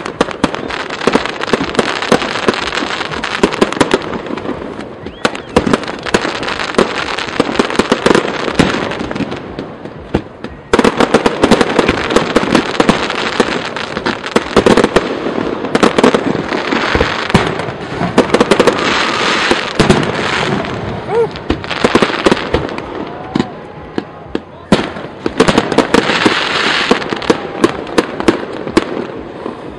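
Aerial fireworks display: a dense barrage of launches, bangs and crackling shell bursts, with a short lull about ten seconds in.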